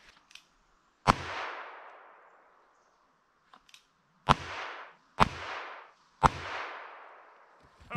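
.22 handgun fired four times at a pumpkin target: one shot about a second in, then three more about a second apart after a pause of three seconds. Each shot trails off in a long echo.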